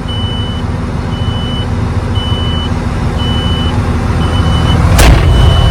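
Heavy diesel machinery running with a rumble, under a vehicle back-up alarm beeping steadily at about one high beep a second. A sudden loud burst of noise about five seconds in.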